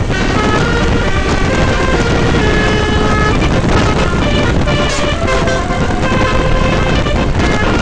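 Indonesian bus 'telolet' multi-tone air horn playing a quick stepping melody of clear notes over a loud low engine and road rumble, with one short click about five seconds in.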